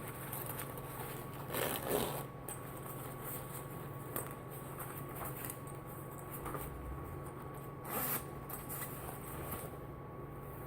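A waterproof shoulder bag being handled: a zipper worked and the bag's material rustling and scraping, in short spells with the loudest about two seconds in and again about eight seconds in.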